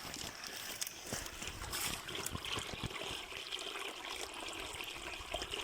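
Small forest stream trickling and gurgling steadily.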